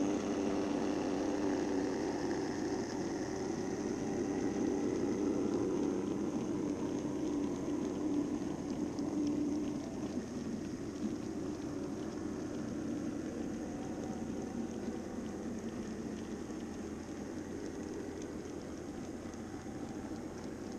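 Minitrix N-scale V160 model diesel locomotives running in double traction, giving a steady electric-motor hum along with the rolling of the train's wheels on the track. The hum is strongest in the first half and eases off after about ten seconds.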